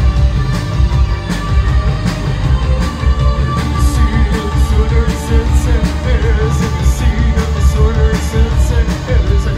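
Post-punk band playing live and loud: drums keeping a steady beat over a heavy bass guitar, with the singer's voice coming in about three and a half seconds in.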